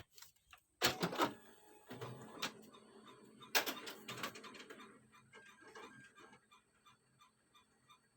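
Photocopier starting up: a sharp click, then several loud mechanical clunks and rattles over a low motor hum, followed by a run of small rapid ticks that fades away near the end.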